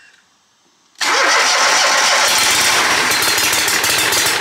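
Kohler EFI twin-cylinder engine on a Scag Cheetah zero-turn mower starting cold: it cranks and catches about a second in, then runs loud and even. The steady beat indicates it is firing normally on its newly replaced ignition coil.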